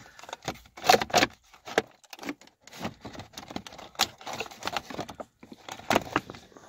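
2005 Mazda 3's plastic center console trim being pulled and worked loose by hand: a run of irregular clicks, knocks and rattles as its retaining clips strain, loudest about a second in and again near the end.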